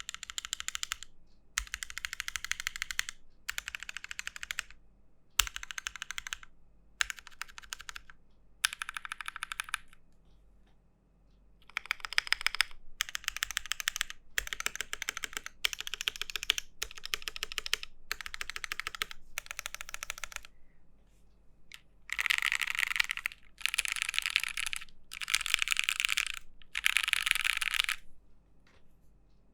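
Typing on an Aquila custom mechanical keyboard (Alice layout, top mount, aluminium case) fitted with JWK Dogikon switches on a POM plate. Runs of fast keystrokes come in bursts of about a second with short pauses between them, and the last four bursts are louder.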